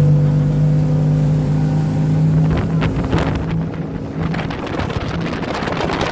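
Motorboat engine running steadily at high speed as the boat planes. From about halfway, rushing water spray and wind buffeting the microphone grow louder.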